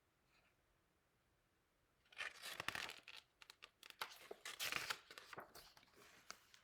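Paper pages of a picture book being handled and turned: rustling and crinkling in a quick run of short crackles, starting about two seconds in.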